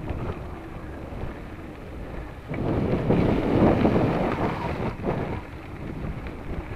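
Wind buffeting the microphone of a camera on a moving mountain bike, over the rumble of tyres rolling on a gravel dirt road. The rumble grows louder for a couple of seconds in the middle.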